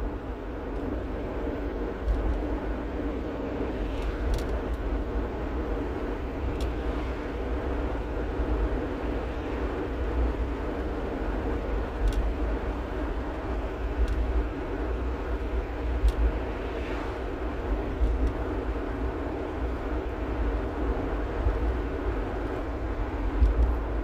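Road noise inside a rental-car shuttle van driving at speed: a steady low rumble of tyres and engine, with a few faint clicks.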